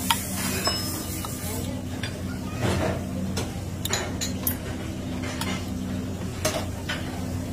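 Knife and fork clinking and scraping on a white plate as grilled fish fillets are cut, several scattered clicks. Under it runs a steady low hum with a faint sizzle of kitchen background.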